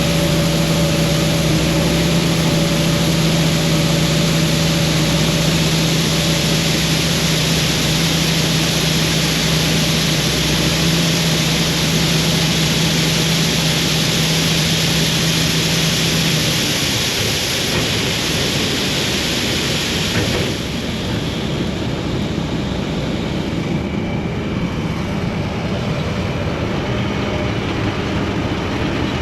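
Heavy harvest machinery running: a steady engine drone over a loud rushing noise. The droning tone stops about two-thirds of the way through, and the sound drops a little soon after.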